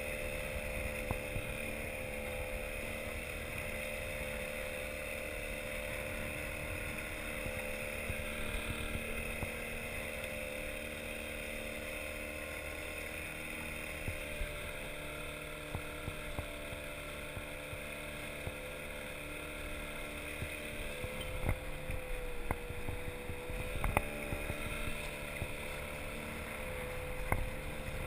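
Small outboard motor on an inflatable boat running steadily at low throttle, its note dipping briefly twice in the later part, with water washing against the hull and a few sharp knocks near the end.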